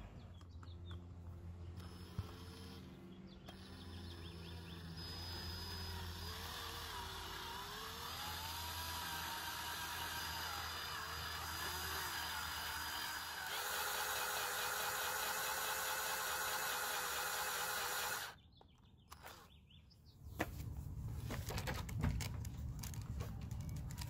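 Cordless drill driving a step bit through a plastic trim panel to widen a hole, its motor running steadily. It runs higher and more evenly for a few seconds past the middle, then stops about three quarters of the way through.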